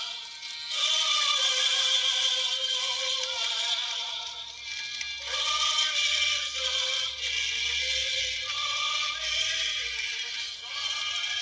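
A vinyl record's song, a singing voice with music, played acoustically through a pin stylus taped into a red plastic cup that acts as the speaker. It sounds thin, with no bass, under a heavy hiss of surface noise.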